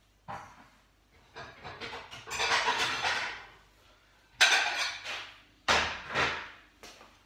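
Kitchen handling sounds: a string of sharp knocks and clatters of dishes and utensils, with a longer rattling stretch around two to three seconds in.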